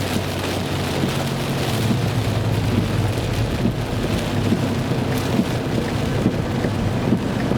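Rain pattering on a car while it drives, over a steady low hum of engine and road noise.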